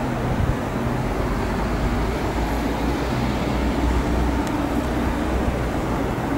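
Regional train rolling slowly, heard from its front end: a steady engine hum and low rumble under the running noise.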